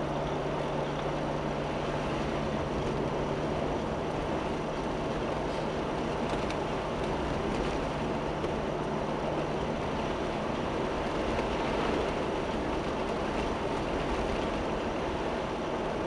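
A Jeep driving along a wet, slushy road, heard from inside the cab: a steady rumble of engine and tyre noise. A low hum in it fades out about halfway through.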